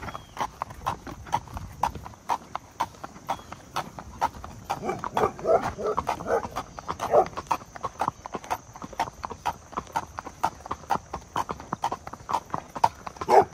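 Horse hooves clip-clopping on a paved road, an even run of sharp beats at about four a second.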